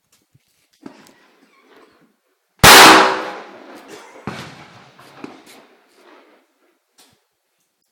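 A single gunshot about two and a half seconds in, loud enough to overload the recording, with a tail that dies away over about a second. A few fainter sharp knocks follow.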